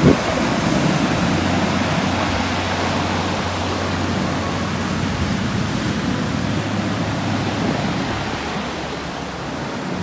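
Surf breaking and washing up a pebble beach: a steady rush of waves that eases slightly near the end, with wind buffeting the microphone at the start.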